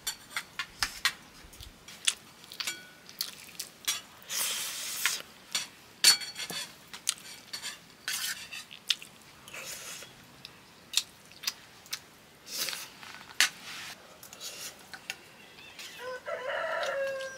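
Steel spoon clinking and scraping against a steel plate while eating rice and dal, in irregular clicks and scrapes. Near the end a short pitched call is heard.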